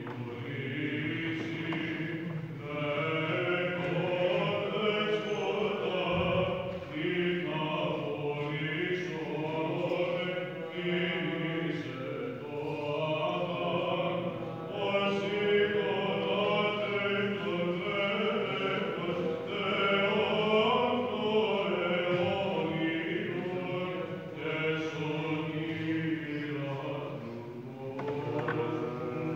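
Orthodox monks chanting Byzantine chant: several male voices sing a stepwise melody over a steady held low drone (the ison).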